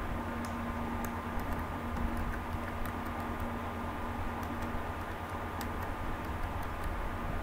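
Computer keyboard keys typed one at a time, a scattering of light irregular clicks, over a steady background hum.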